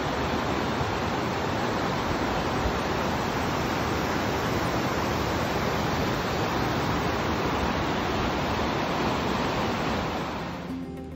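Fast mountain river rushing over a stony bed: a steady roar of white water that fades out near the end.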